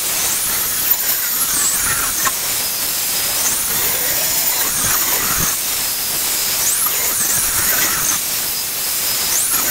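Benchtop table saw running and ripping a wooden board along the fence. A loud, steady whine whose pitch sags and recovers several times as the blade takes the load.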